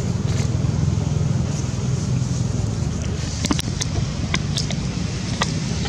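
Steady low rumble throughout, with five or six short sharp clicks in the second half.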